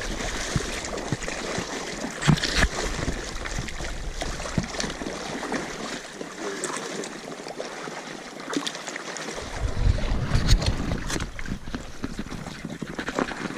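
A hooked pike thrashing and splashing at the water's surface beside an inflatable boat as it is played on a bent rod, with wind rumbling on the microphone at times.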